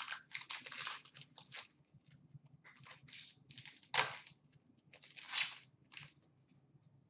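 Upper Deck hockey card pack wrapper being torn open and crinkled in the hands: a string of short crackling rustles, the loudest about four seconds and five and a half seconds in.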